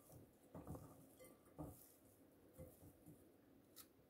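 Faint, soft, irregular sounds of a bare hand mixing shredded cooked chicken with sliced onion and herbs in a glass bowl, a few strokes over the few seconds.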